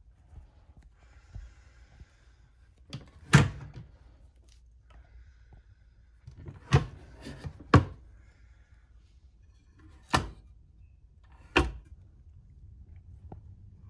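About five sharp knocks and clacks, spaced a second or more apart, as a foldable table and the flap of a wall-mounted litter bin in a railway coach are handled, over a low steady rumble.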